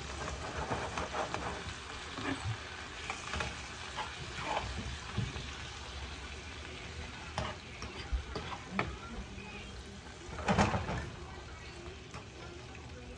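Corn and sausage frying in a skillet, a steady sizzle, with scattered clinks and scrapes of tongs and a fork against the pan; a louder clatter about ten seconds in.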